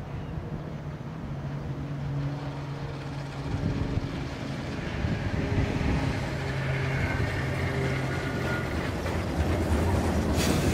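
PCC streetcar running on the line: a steady low hum that grows louder, with a faint higher whine partway through and a short burst of noise near the end.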